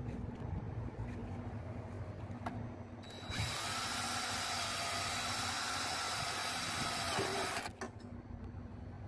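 Cordless drill boring into an aluminium profile, running steadily for about four seconds from roughly three seconds in and stopping abruptly near the end, with a steady whine over the cutting noise.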